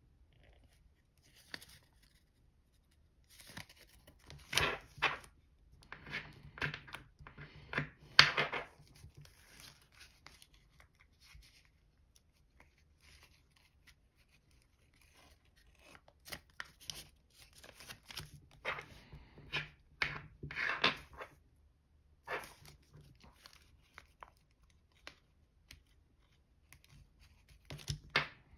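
Origami paper rustling and crinkling in bursts as a thick, many-layered paper model is folded and creased by hand, with a quiet spell in the middle.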